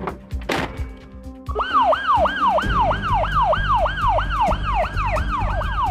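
Electronic police car siren in a fast yelp, its pitch rising and falling about three to four times a second. It starts about a second and a half in, after two sharp whooshing hits, and a low steady rumble joins underneath it shortly after.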